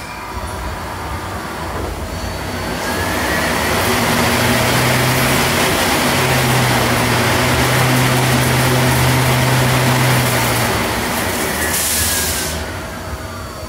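Mazak Integrex 35 lathe turning a plastic bar under flood coolant: the spindle whine rises as it speeds up about three seconds in, over a loud steady hiss of coolant spray and cutting. A short louder rush comes near the end, and then the spindle whine falls as it slows down.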